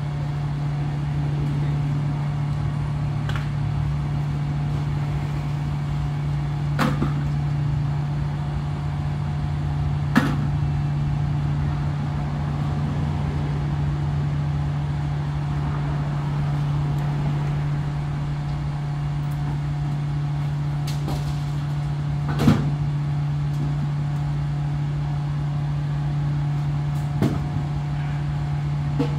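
Idling vehicle engine: a steady low hum, with a few sharp knocks and clunks through it, the loudest about three quarters of the way through.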